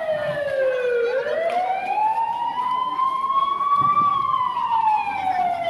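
A siren wailing in slow sweeps: its pitch falls for about a second, climbs steadily for about three seconds, then falls again.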